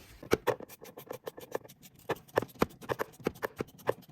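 A rapid, uneven run of sharp hollow knocks, several a second.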